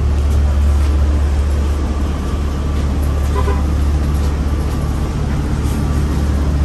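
Steady low rumble inside a city bus cabin from the bus's engine running.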